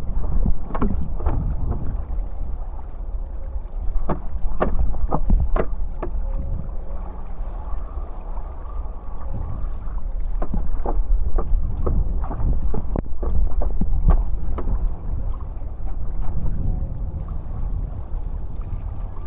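Wind rumbling on the microphone over water rushing past a downwind foil board, with scattered sharp clicks and slaps, most of them a few seconds in and again past the middle.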